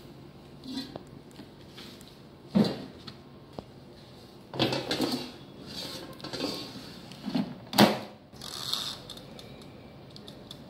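Air fryer being loaded and shut: sausage pieces tipped into its metal basket, the basket pushed home into the fryer and the timer dial turned, giving a series of clattering knocks and clicks, the loudest about eight seconds in.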